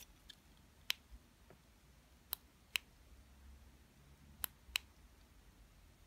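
Faint, sharp clicks from a vape box mod and Genesis atomizer while a freshly built mesh coil is dry-fired until it glows red: one click, then two pairs about a third to half a second apart.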